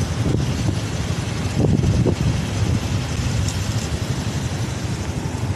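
Steady city street traffic noise: the hum of passing cars and their engines, a little louder about one and a half to two seconds in.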